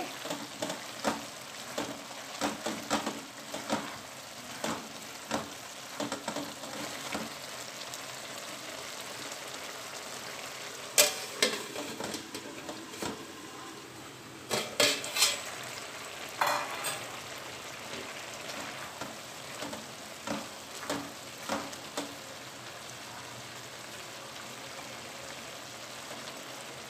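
A thick curry of sprouted moong and potatoes simmering in a metal pot with a steady sizzle. A wooden spatula scrapes and knocks against the pot during stirring at the start. Louder metal clanks come in the middle as a metal lid is handled on the pot.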